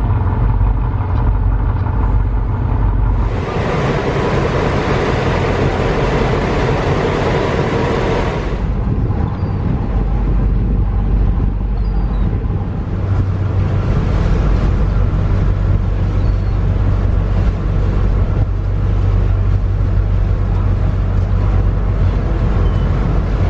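Passenger ferry's engine running with a steady low drone under wind and water noise on the open deck. A louder rushing noise comes in for about five seconds, starting about three seconds in.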